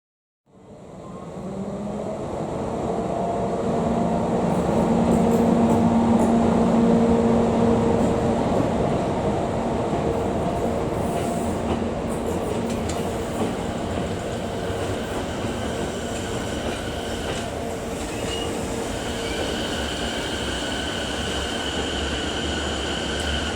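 EF64 1031, a DC electric locomotive running light without a train, moving through the station: a loud rumble of wheels on rail with steady whining tones, loudest about five seconds in, and a higher wheel squeal joining in during the second half.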